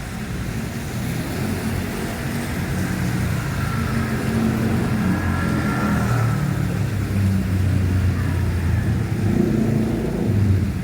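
Road traffic: motor vehicle engines running, growing gradually louder as traffic comes closer.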